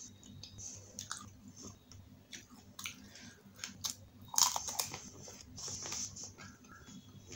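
Pani puri being eaten close to the microphone: small clicks early on, then a loud crunch about four and a half seconds in as a whole crisp puri shell breaks in the mouth, followed by crackly chewing.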